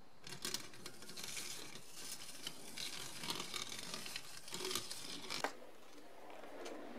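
A 1960s Moulinette hand-cranked food mincer being turned, its blades cutting and crushing pieces of red pepper. It makes an uneven crunching noise with scattered sharp clicks and stops about six seconds in.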